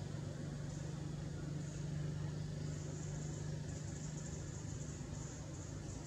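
A steady low engine hum with no change in pitch, with a faint high hiss that comes and goes.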